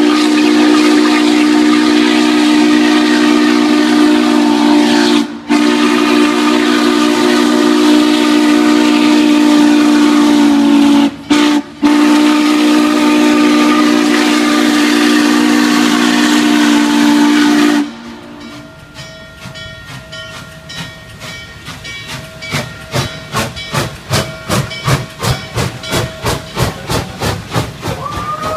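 N&W 611 steam locomotive's chime whistle sounding a long-long-short-long grade-crossing signal. The long blasts run about six seconds each, with a brief short blast before the last one. Once the whistle stops, the steam exhaust chuffs in an even beat of about three to four a second, growing louder as the locomotive passes close by.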